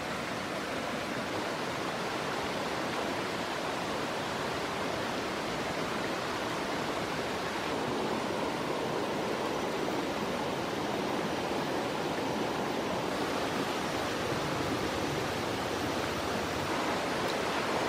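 Steady rushing of running water from a nearby stream.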